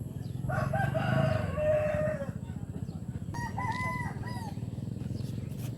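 A rooster crowing: one long call that ends on a drawn-out note, then a shorter second call about a second later, over a steady low background rumble.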